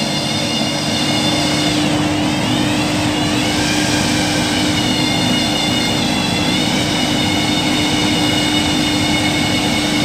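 Steady running machinery in a ship's engine room: a constant low hum with a high whine that wavers and drifts in pitch.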